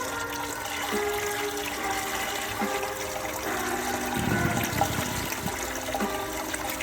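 Waterfall: a steady rush of falling water, with a louder low surge about four seconds in. Background music with held notes plays over it.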